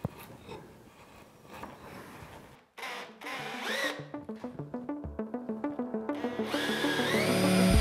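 Soft scraping of a chisel paring end grain, with a sharp click at the start. After a brief gap, background music with a quick stepping melody comes in and swells steadily louder.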